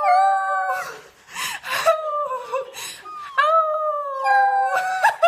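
A dog howling: a long held, wavering howl at the start, a few short breathy sounds, then a second long howl from about three and a half seconds in.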